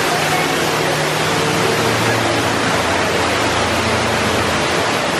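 Ruby Falls' underground waterfall pouring into its pool: a loud, steady rush of falling water.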